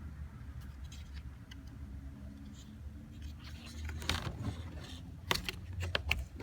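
Plastic interior door handle being worked into the door panel by hand: faint scraping and handling noise with a few sharp clicks, louder near the end, over a low steady hum.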